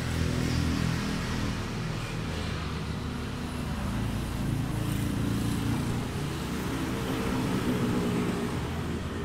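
A motor vehicle's engine running, a low steady drone that drifts slightly in pitch.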